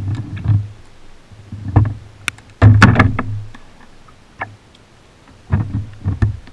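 Handling noise on a kayak: irregular knocks and hollow thumps as a fishing rod and rig are moved about against the hull, with a few sharp clicks. The loudest thumps come about three seconds in, and another group near the end.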